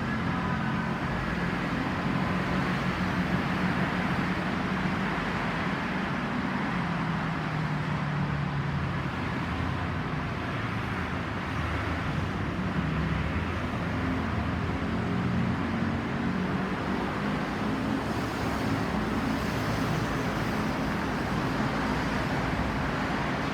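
Road traffic noise: passing vehicles' engines and tyres running steadily, with low engine tones rising and falling now and then. The last faint tones of the ambulance siren fade out about a second in.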